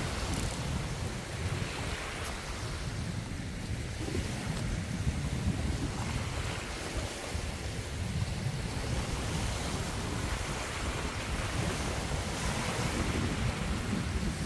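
Wind buffeting the microphone: a steady, gusting rush with a deep rumble.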